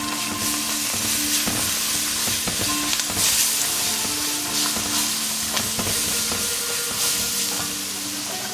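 Chopped onion and ground spices sizzling in hot oil in a pan, stirred and scraped with a silicone spatula.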